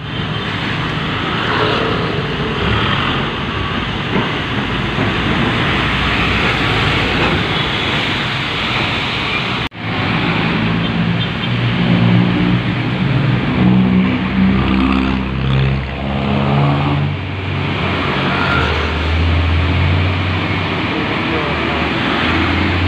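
Road traffic on a wet street, with tyres hissing and vehicle engines running. About ten seconds in, after a cut, a heavy truck's diesel engine rumble builds and stays loud as a tractor-trailer passes close by.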